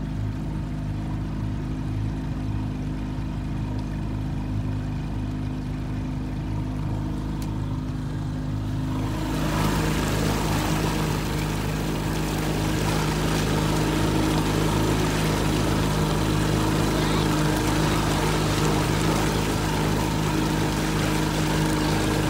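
Small outboard motor running steadily as the boat trolls, with water rushing past the hull. About nine seconds in, a louder rushing hiss joins the engine and stays.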